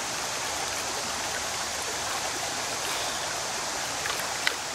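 Shallow, fast-flowing river water rushing steadily, with a brief sharp tick or two near the end.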